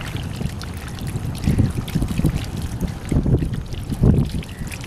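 Shallow muddy water sloshing and splashing as a person wades through it, in several irregular surges, with wind rumbling on the microphone.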